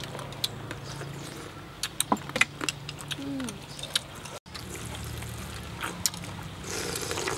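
Metal spoons clinking against bowls while eating, a few sharp clicks in the first half. A short hummed voice sound comes about three seconds in, and a brief slurp near the end as the dessert is drunk from the bowl.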